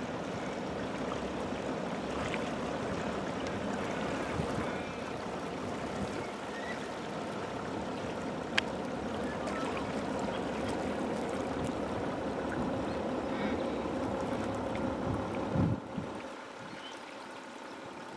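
The Wollondilly River in flood, running several metres above normal: a steady rush of fast-flowing brown water below the rocks. There is a single sharp click about halfway through, and the rush drops a little quieter near the end.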